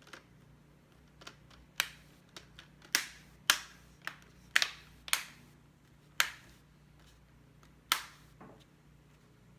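Plastic LCD bezel clips of an ASUS R510L laptop lid snapping into place one after another as the frame is pressed on around the screen: about a dozen sharp snaps, irregularly spaced.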